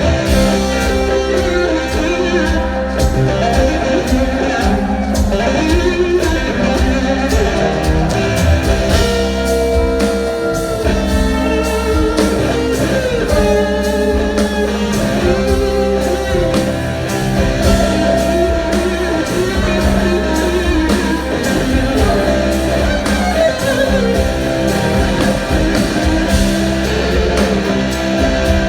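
Live blues-rock band playing, with electric guitar to the fore over bass and drums and gliding guitar notes.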